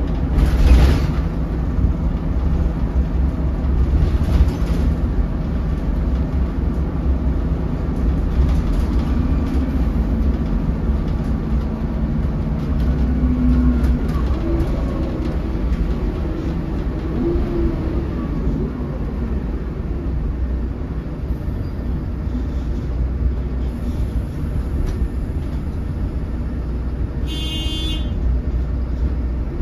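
Cabin noise of a 2008 MAN 16.240 Designline bus under way: a steady low diesel-engine and road rumble. There is a sharp knock about a second in and another about four seconds in, and a short high beep near the end.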